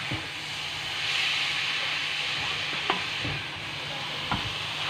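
Shredded cabbage, onion and chicken sizzling in a frying pan as a wooden spatula stirs and tosses them, with a steady hiss and a few light knocks of the spatula against the pan.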